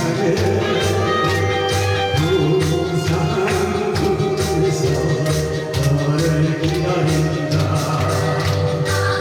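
Instrumental backing music of a song, with a steady beat, a pulsing bass line and regular percussion ticks under a sustained melody.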